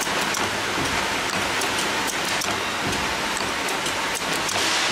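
Automatic paper cake tray forming machine running: a steady hissing clatter with many small, irregular ticks.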